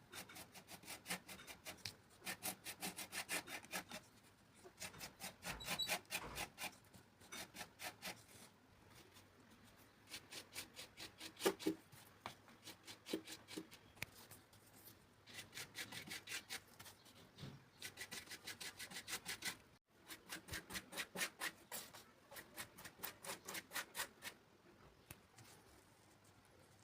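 Rapid back-and-forth rubbing strokes of a hand tool on a workpiece, several strokes a second, in runs of a few seconds broken by short pauses.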